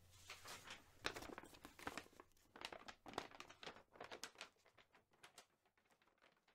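Faint, irregular crinkling and rustling of a paper manila envelope being handled, thinning out near the end.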